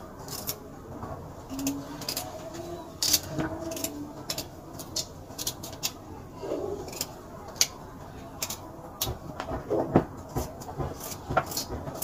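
Irregular light clicks and knocks of hands working with utensils and food at a kitchen counter, several a second and a few louder taps.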